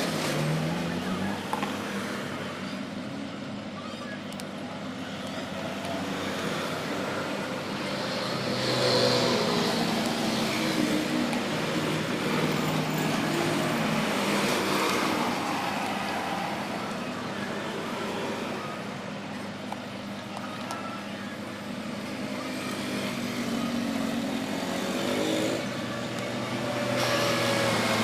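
Road traffic: motor vehicles passing, with engines rising and falling in pitch as they go by.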